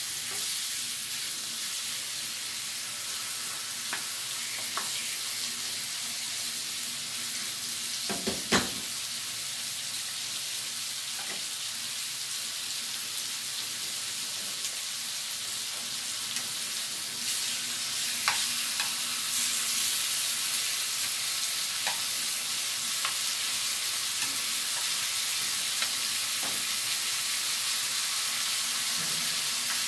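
Slices of pork belly sizzling in melted butter in a non-stick frying pan, with scattered clicks of a ladle and tongs against the pan and one louder knock a little over a quarter of the way in.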